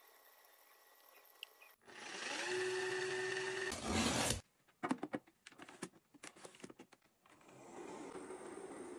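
A small household appliance motor spins up with a rising hum that settles to a steady pitch, then a run of sharp taps and scrapes on a cardboard box. Near the end a steady airflow like a small fan starts, fitting an electric shoe dryer blowing.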